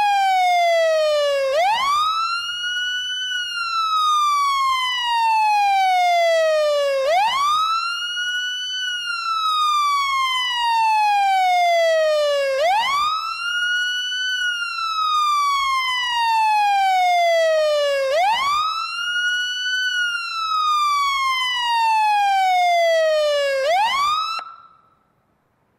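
Fire siren wailing: each cycle climbs quickly, holds briefly at the top, then slides slowly down, repeating about every five and a half seconds. It cuts off abruptly just after a last rise near the end.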